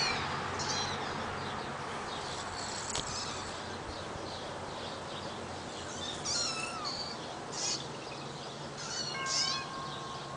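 Young kittens mewing: short, thin, high-pitched mews scattered through, several in quick succession around six and again around nine seconds in.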